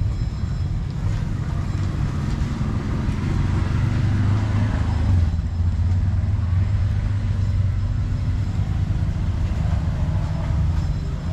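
Low, steady rumble of motor vehicle traffic, swelling about four to five seconds in.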